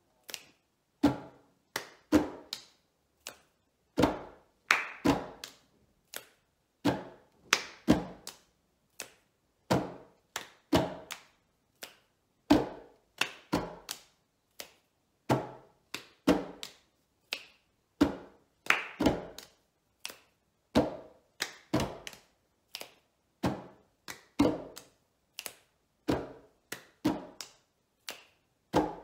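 Two people's hands slapping and tapping a wooden tabletop and clapping together in unison, playing the same slow four-beat table-clapping pattern over and over. The pattern repeats about every two to three seconds.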